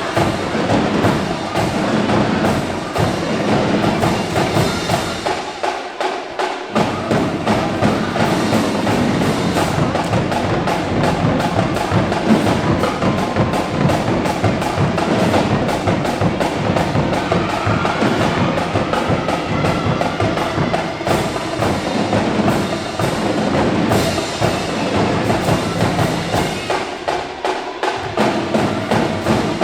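Marching drumline playing a fast, dense cadence of snare, tenor and bass drums. The low bass drums drop out briefly twice, near a quarter of the way in and near the end.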